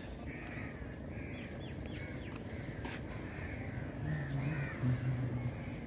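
Crows cawing over and over over a steady low rumble of background noise. From about four seconds in, a low droning tone rises above the rumble for a second or so and is the loudest sound.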